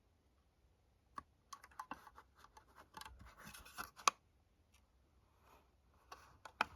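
Irregular small plastic clicks and scratchy scraping as a battery-powered smoke alarm is handled, with one sharper click about four seconds in and a few more clicks near the end.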